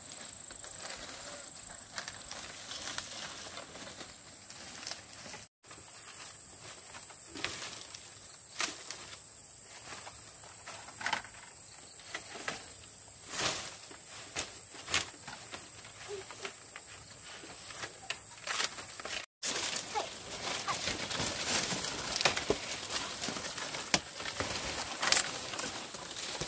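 Dry palm-leaf thatch rustling and crackling as it is handled and laid on a bamboo frame, with scattered sharp crackles and snaps. The crackling gets denser and louder about two-thirds of the way through.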